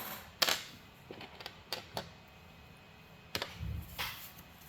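Irregular sharp clicks and taps of small tools and 3D printer parts being handled and set down, the loudest about half a second in, with a duller knock near the end.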